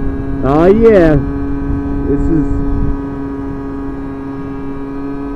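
MBK Ovetto 50cc two-stroke moped engine running at a steady, even drone while riding, with low wind rumble on the helmet microphone. Lots of noise for not much speed. About half a second in, a short tone rises and falls in pitch.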